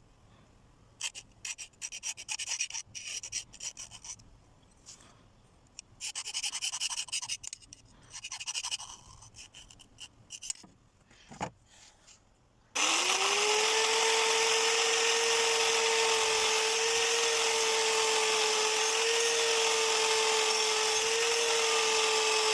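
Scattered scraping and clicking of metal being handled, then an electric grinder starts about thirteen seconds in, its motor whine rising as it spins up and then holding steady under a loud grinding hiss.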